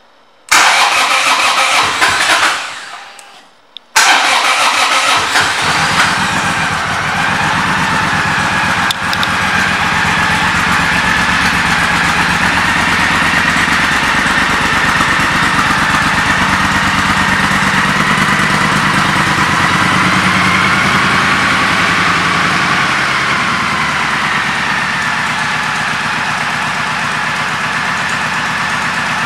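2010 Triumph Thunderbird's 1600 cc parallel-twin engine starting about half a second in, running briefly and dying away. It is restarted about four seconds in and then idles steadily.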